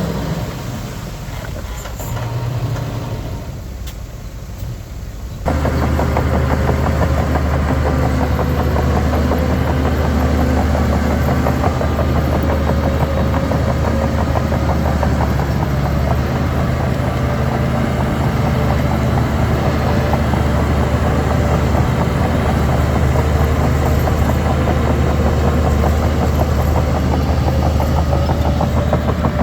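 Heavy diesel engine of earthmoving machinery running. About five seconds in, the sound jumps suddenly to a much louder, steady engine sound that holds unchanged.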